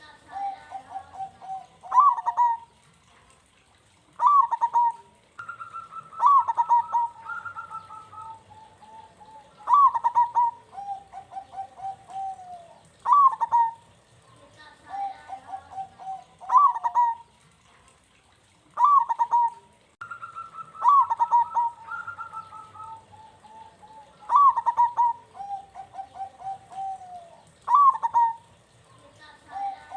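Zebra dove (perkutut) cooing, phrase after phrase every few seconds. Each phrase opens with a sharp falling note and runs on into a quick string of short, lower notes. Twice the notes overlap at two pitches.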